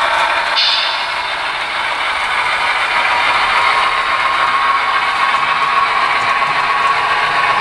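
Model train locomotive running along the track, its small electric motor and gears whirring steadily close up.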